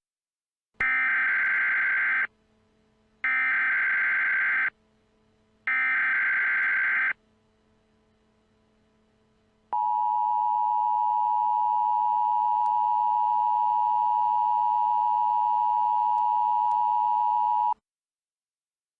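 Emergency Alert System tones: three short, identical bursts of SAME header data about a second apart, then about eight seconds of the steady two-tone EAS attention signal. The attention signal cuts off about a second before the end.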